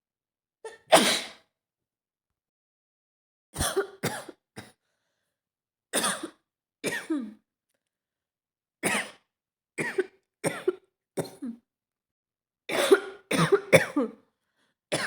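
A woman with a cold coughing in short fits of one to four coughs, with pauses between. The loudest single cough comes about a second in, and a quick run of three or four comes near the end.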